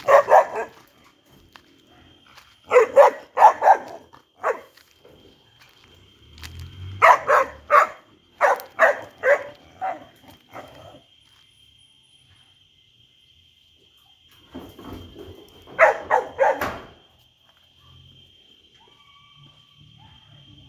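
A dog barking in several runs of quick barks, then a pause of a few seconds before a last run near the end.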